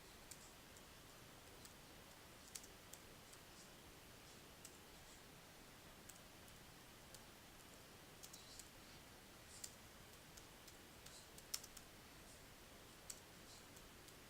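Faint, irregular clicks of a computer keyboard and mouse over a quiet room hush, the loudest about three-quarters of the way through.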